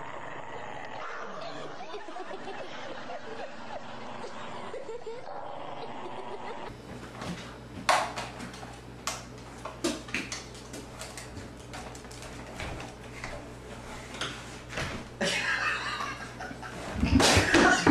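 Soft laughter from people watching, over a steady background hiss, then a string of sharp knocks and clatters, with louder laughter near the end.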